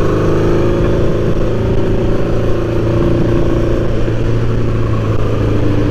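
Honda CB750 cafe racer's air-cooled inline-four engine running at a steady cruising pace while the bike is ridden, with wind noise on the handlebar-mounted microphone.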